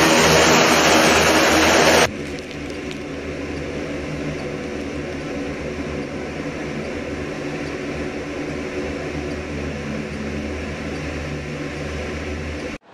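A US Navy LCAC hovercraft's gas turbines and propellers running loud right overhead, with a heavy rushing blast of air. About two seconds in this cuts to a steadier, quieter engine drone with a low hum, heard from aboard a craft under way at sea.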